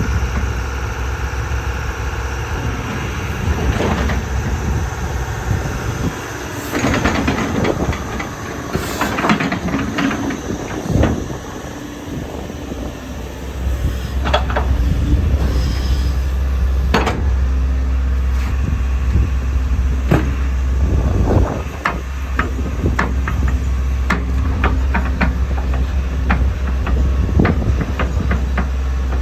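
JCB JS160LC tracked excavator running, its diesel engine giving a steady low drone that gets louder about halfway through. Sharp knocks and clanks come at irregular intervals throughout.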